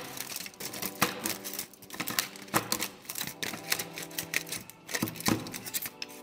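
Kitchen knife chopping a bar of dark chocolate, a quick irregular run of sharp cracks and clicks as the blade snaps through the chocolate and knocks the surface beneath.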